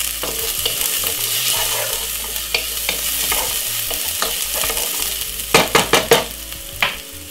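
Chopped garlic and white onion sizzling in hot oil in a non-stick pot, stirred with a wooden spoon; the sizzle dies down toward the end. A quick run of sharp taps comes about five and a half seconds in, then one more.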